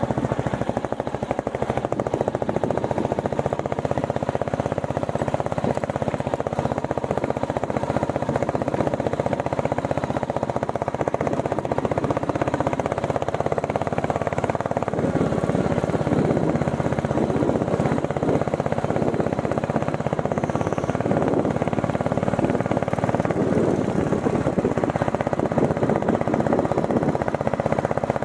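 Royal Enfield Bullet 350's single-cylinder engine running steadily as the motorcycle rides a rough off-road track.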